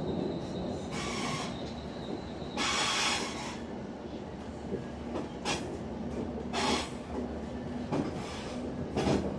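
A ScotRail electric train running along the track, heard from inside the carriage: a steady rumble of wheels on rails, with several short, louder hissing rushes every second or two. A faint steady hum joins in for a few seconds near the middle.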